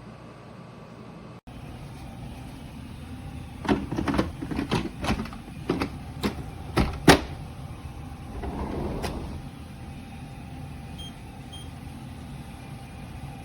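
A dehumidifier's fan running with a steady hum, with a quick run of sharp clicks and knocks about four to seven seconds in. Two faint short high tones follow near the end.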